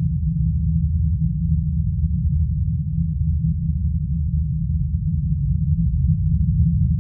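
A steady, deep rumbling drone, with nothing above the low range and no distinct events.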